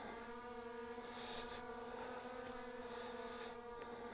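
Skydio 2 quadcopter drone's propellers buzzing steadily at one pitch as it hovers and follows, with a couple of brief rustles.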